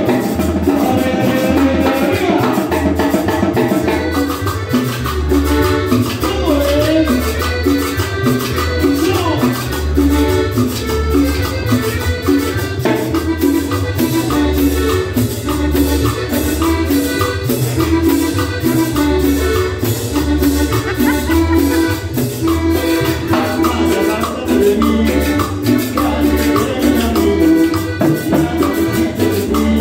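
Live Latin dance music from a band: an even, quick percussion beat over a steady pulsing bass and melodic lines, playing without a break.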